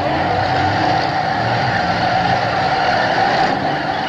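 Engines of several demolition-derby cars running together in a steady, loud din.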